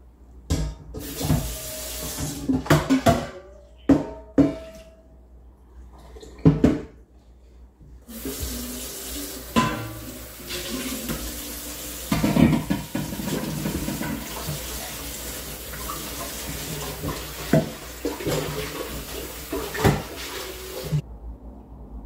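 A metal pot knocking and clanking with short rings, then a kitchen tap running steadily into the sink for about thirteen seconds before it is shut off abruptly near the end.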